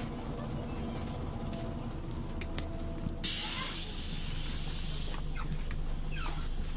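Scania OmniLink city bus with its engine running in a low steady drone. About three seconds in, a loud burst of compressed-air hiss from the bus's pneumatics lasts about two seconds and cuts off sharply, followed by a few faint short squeaks.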